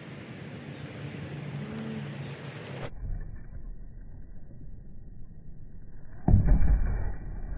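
Inmotion V12 electric unicycle ridden up a small rise and past close by, over a steady outdoor rush of air. About six seconds in, a loud low rumble lasts a second or so as the wheel passes nearest.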